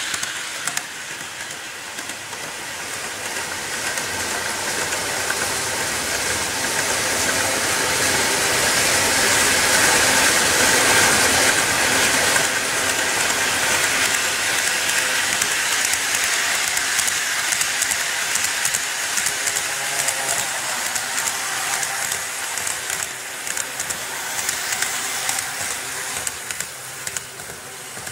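N-scale model electric trains running along the layout track: a steady rolling whir of wheels and motors, growing louder around the middle as a train comes close.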